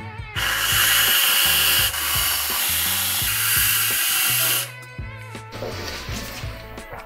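Aerosol can of whipped cream spraying: two long hisses, the first about a second and a half, the second about two and a half seconds, with a brief break between them.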